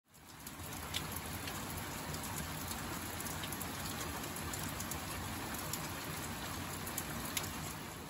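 Steady spring rain falling, with a few sharp drops ticking close by now and then. It fades in at the very start.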